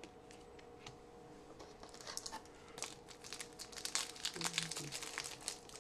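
Faint crinkling and crackling of a foil trading-card pack wrapper being handled, starting about two seconds in.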